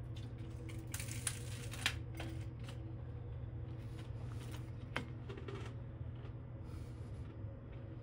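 Light handling noises: rustling and a few sharp clicks, the sharpest about five seconds in, over a steady low hum.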